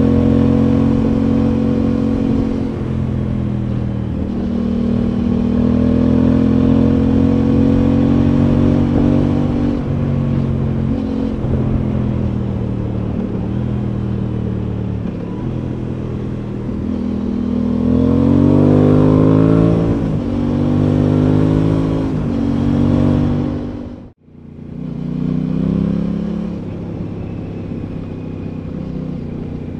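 Aprilia Tuono 660's parallel-twin engine running under way, its pitch rising and falling with throttle and gear changes. The revs climb around eighteen seconds in, then the sound cuts out almost completely for a moment at about twenty-four seconds before coming back.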